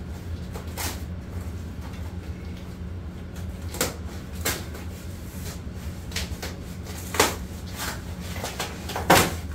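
A large cardboard shipping box being pulled open and handled: scattered knocks, scrapes and rustles of cardboard, the two loudest near the end. Under them runs a steady low hum from the home's HVAC.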